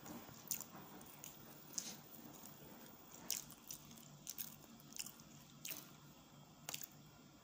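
Person chewing soft banana cake: faint wet mouth sounds with about seven short, sharp lip-smacking clicks spread through.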